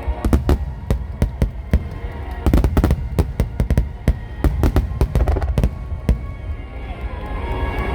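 Fireworks shells bursting in rapid, overlapping bangs, densest a few seconds in, over music playing. The bangs thin out near the end while the music continues.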